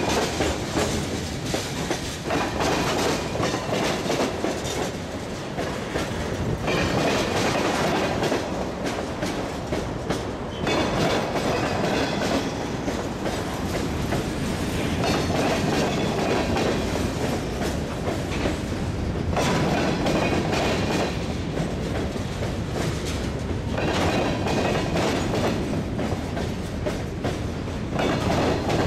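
Freight train cars, tank cars and covered hoppers, rolling past close by: steady wheel-on-rail noise with rapid clacking of wheels over the rail joints, swelling every few seconds as cars go by.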